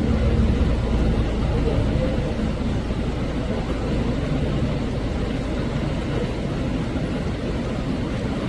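Steady low rumble of background noise with indistinct murmuring voices mixed in, and no distinct sudden sounds.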